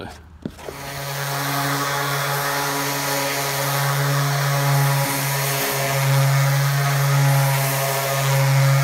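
Electric random orbital sander with 150-grit paper, sanding polyester glazing putty smooth on a wall patch. It starts about half a second in, then runs with a steady hum and hiss.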